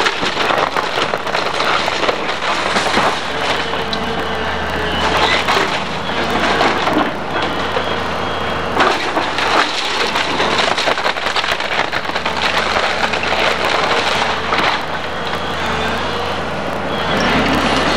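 Hydraulic excavator tearing apart a wood-frame house: timber cracking and splintering and debris crashing down again and again, over the machine's engine running steadily.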